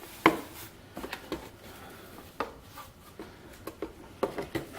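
Cardboard packaging being handled while a product box is opened: scattered light taps, knocks and rustles, with a sharper knock just after the start and a cluster of taps near the end.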